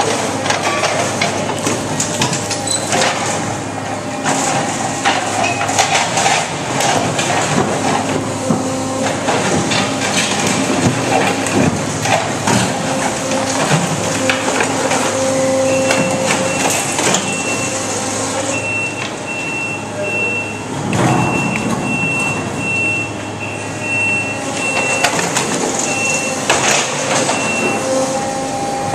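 Brokk 180 demolition robot's hydraulics running with a steady hum while its grapple grabs broken concrete, the chunks knocking and clattering against each other and into a steel trash bin. A high, repeated beeping comes in about halfway through and keeps on until near the end.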